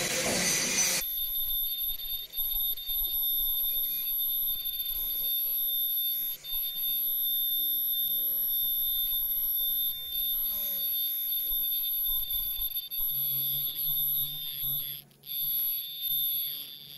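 Disposable mask machine giving off a steady high-pitched whine after a loud hiss cuts off about a second in. A low hum comes in near the end.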